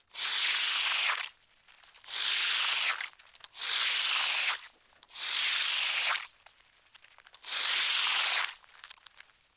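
Ice auger blades cutting into lake ice: five scraping bursts about a second each, with short pauses between them.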